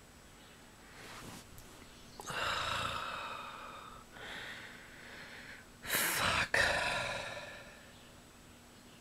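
A man breathing heavily in exasperated sighs: three long breaths, the last the loudest, with a short catch in the middle of it.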